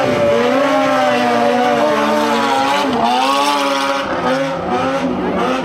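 Stunt motorcycle engine held at high revs, its pitch wavering up and down with the throttle, with brief dips about three seconds in and again near the end.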